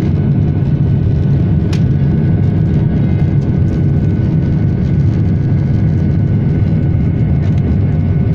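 Steady jet engine and rushing airflow noise heard inside the cabin of an Airbus A320-family airliner climbing after take-off, a deep even rumble with a faint steady whine above it. A single brief click about two seconds in.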